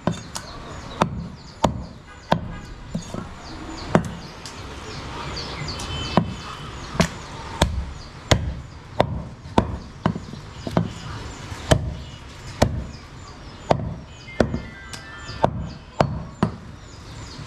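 Butcher's cleaver chopping goat meat on a wooden chopping block: a long run of sharp knocks, about one or two chops a second, slightly uneven.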